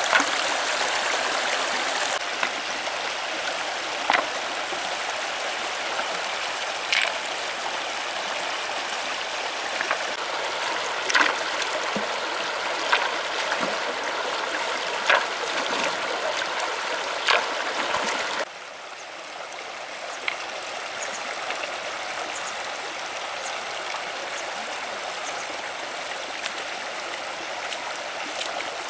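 Shallow river water running over stones, a steady rushing, with short sharp splashes every couple of seconds from hands working in the water among the rocks. A little over halfway through the sound drops abruptly to a quieter flow.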